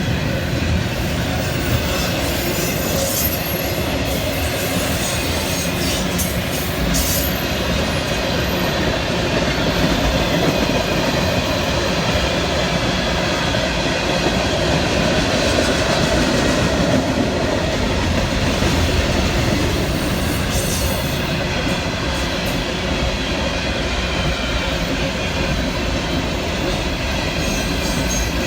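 Long freight train's cars rolling past: a steady rumble of steel wheels on rail with clickety-clack over the joints, and a few brief high wheel squeals.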